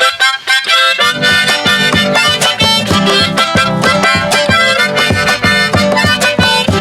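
Andean-style band music: a wind instrument plays the melody alone, and about a second in plucked strings and low bass notes join in a steady rhythm.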